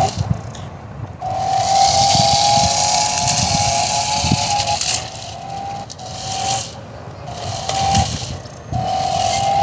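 RC drift car's motor whining in bursts of throttle, with a hiss over it: one long pull of about four seconds, then several shorter ones, the pitch staying fairly level within each.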